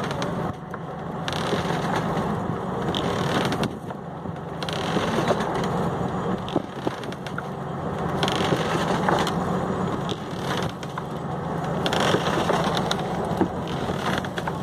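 Fishing boat's engine running with a steady low hum, under dense crackling noise that swells and fades every few seconds.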